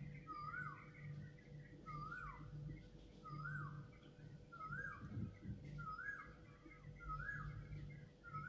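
An animal calling over and over, about once a second, each call a short rise and fall in pitch, over a faint low hum.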